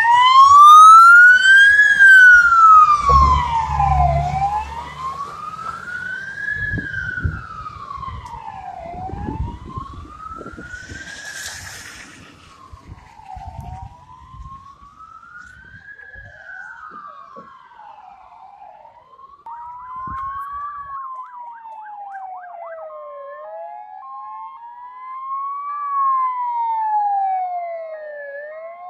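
Scania fire engine's siren wailing in a slow rise and fall that repeats about every five seconds, loud as the truck passes with its engine rumbling, then fading as it drives away. About twenty seconds in, a second emergency siren with a lower sweep joins from another approaching vehicle and grows louder near the end.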